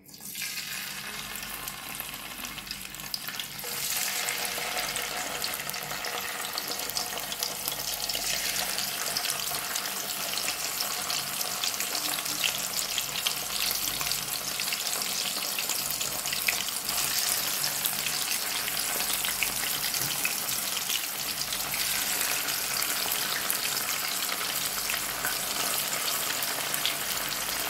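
Needlefish pieces frying in hot oil in a nonstick frying pan: a steady sizzle with fine crackling. It starts as the first piece goes in and grows louder about four seconds in.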